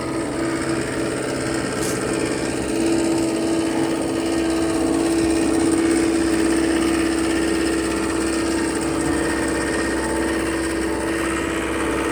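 John Deere 325G compact track loader's diesel engine running steadily while the machine travels, with a strong, constant droning tone.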